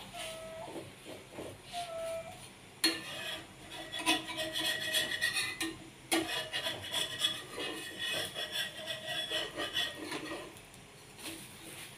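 A rough rasping, scraping noise starts abruptly about three seconds in and goes on for about seven seconds, with a few short faint squeaks before it.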